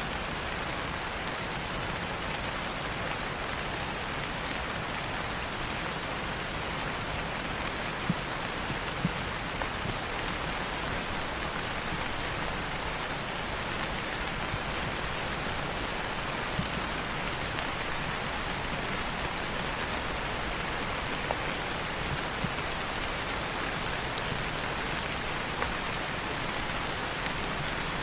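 Steady rain falling on foliage, an even hiss with occasional sharper drops ticking close by.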